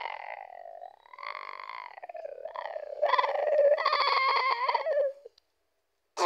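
A high-pitched human voice making wordless, wavering sounds, humming or singing to itself, louder over the second half, stopping about five seconds in. A single sharp click follows near the end.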